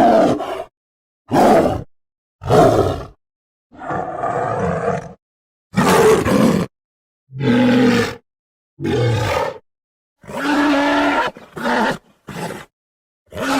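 A run of about ten short giant-gorilla roars and grunts, King Kong creature sound effects from the 2005 film, each lasting under a second and a half and cut apart by dead silence.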